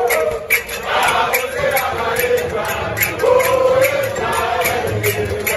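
Crowd of men singing a chant together in unison, loud, over a quick steady beat of about four strokes a second.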